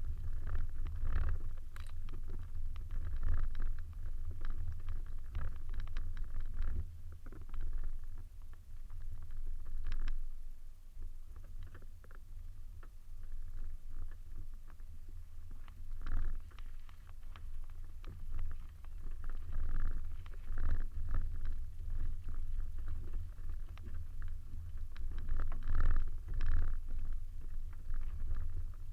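Suzuki Swift driving over rough off-road ground: a low, uneven rumble with frequent knocks and rattles as it jolts along.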